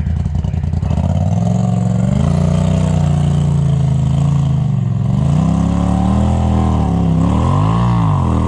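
Polaris RZR side-by-side engine revving under load while pulling on a tow strap up a rocky trail, with too little traction to make headway. The revs climb about two seconds in, sag midway, then swing up and down quickly several times near the end.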